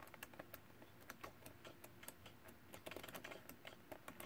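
Faint, irregular ticks and soft rustles of sheets of patterned cardstock being turned one after another in a 12x12 scrapbook paper pad.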